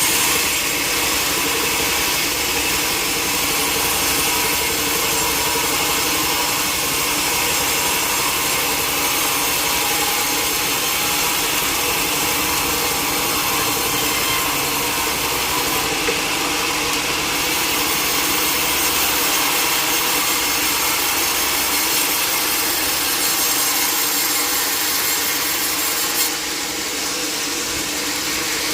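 Sawmill saw cutting lengthwise through a log, a steady continuous rasping with a constant whine.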